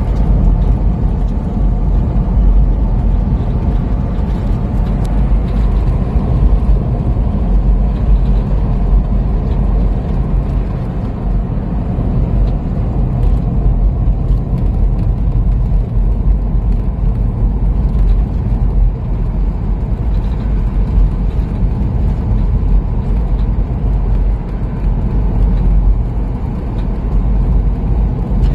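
Car driving slowly along a country road, heard from inside the car: a steady low rumble of engine and tyres.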